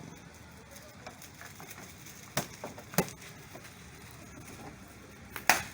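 A few sharp plastic clicks and knocks from interior dashboard trim pieces being handled and fitted, the loudest near the end.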